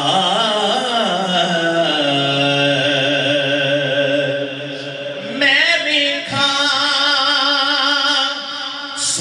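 Male voice singing a naat into a microphone in long, drawn-out melodic phrases, with a steady low tone held underneath. The voice breaks briefly a little past the middle, then comes back in.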